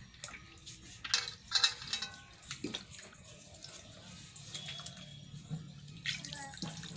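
Water splashing and dripping, with a few sharp knocks or clinks about one to three seconds in, and faint voices in the background.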